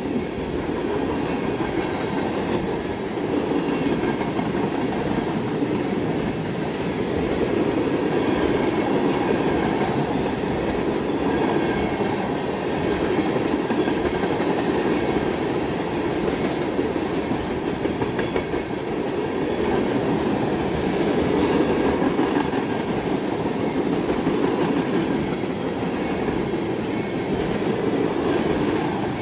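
Freight train of tank cars rolling past: a steady rumble of steel wheels on rail, with occasional clicks as the wheels cross rail joints.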